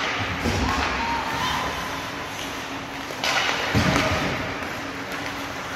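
Ice hockey play in a rink: a steady hiss of skates on the ice, with a sharp crack about three seconds in and a dull thud just after it.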